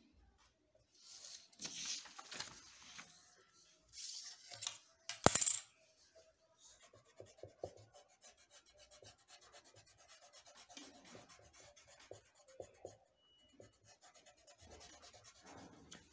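A sheet of drawing paper rustling as it is moved on a table, with a sharp click a little after five seconds in, the loudest sound. Then quick, even back-and-forth rubbing strokes on the paper, several a second.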